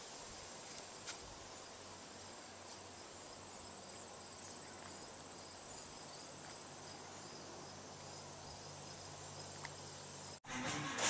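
Crickets chirping faintly and steadily in a high, fine, pulsing trill. Near the end the sound cuts off abruptly and music begins.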